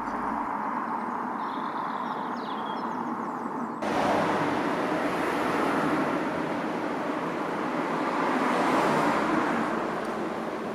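Steady road-traffic noise recorded on location, a constant wash that jumps abruptly louder about four seconds in and swells a little again later.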